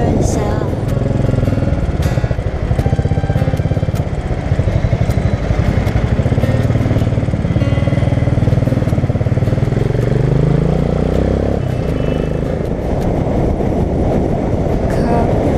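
Royal Enfield Continental GT's 535 cc single-cylinder engine running under the rider, heard from a helmet-mounted camera. Its note climbs for about a second and a half some ten seconds in, then falls away sharply.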